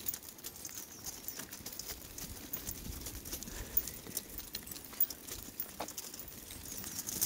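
Footsteps walking on a tarmac path: a run of light, irregular steps.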